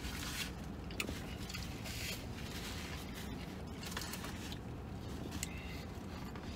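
A man chewing a mouthful of steak and cheese sub, with a few faint clicks over a steady low hum.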